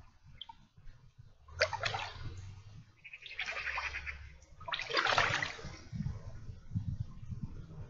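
River water sloshing and splashing around a person's legs as she wades through shallow water, with two louder splashy surges, one about a second and a half in and one about five seconds in.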